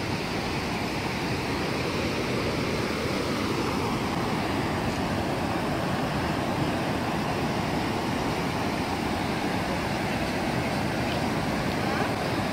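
Steady rush of the Big Sioux River's falls: white water pouring over low cascades and pink quartzite rock ledges.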